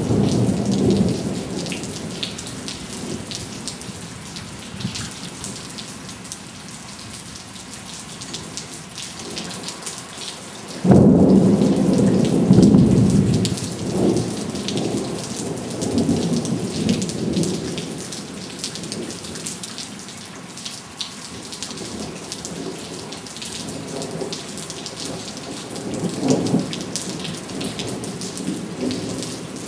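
Heavy rain falling steadily, with thunder. A rumble fades over the first few seconds. About eleven seconds in comes a sudden loud clap, the loudest sound, which rumbles on for several seconds, and another shorter rumble follows near the end.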